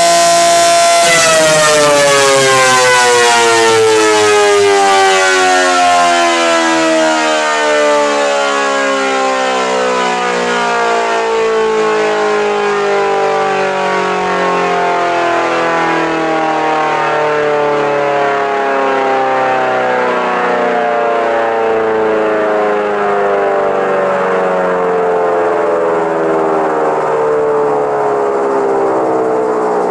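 W.S. Darley 5TT electric siren on 240 volts, holding its full-speed pitch for about a second, then winding down: its wail falls slowly and smoothly in pitch as the rotor coasts after the power is cut, and it is still sounding at the end.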